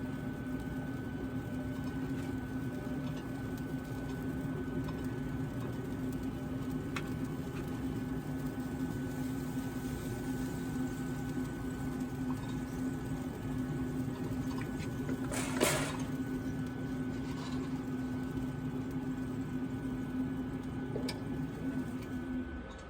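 Steady hum of a running smoker, held at one pitch, with a brief rustle about three-quarters of the way through. The hum drops away just before the end.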